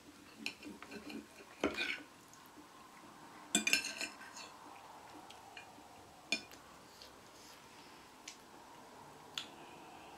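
Metal fork and knife clinking and scraping against a plate, with short clatters about two and four seconds in and a few single clinks after.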